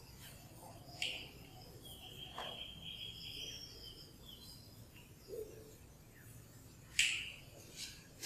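Chalk writing on a blackboard: sharp taps about a second in and again near the end, with a high, steady squeak of the chalk lasting under two seconds in between.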